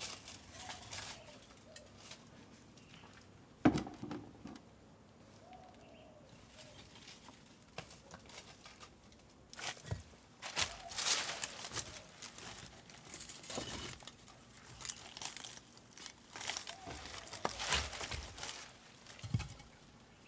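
Rustling, crinkling and scraping handling noises, thickening from about ten seconds in, with one sharp knock a little under four seconds in.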